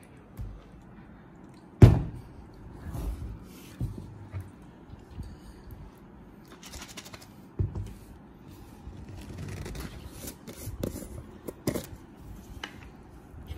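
Plastic snack jar handled on a wooden table: a sharp knock as it is set down about two seconds in, then scattered knocks, scraping and rasping as the screw lid is twisted off.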